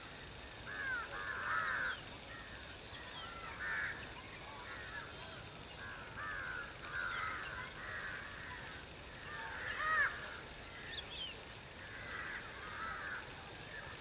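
Baya weavers chattering: clusters of short, arched chirps come every second or two, the loudest about ten seconds in.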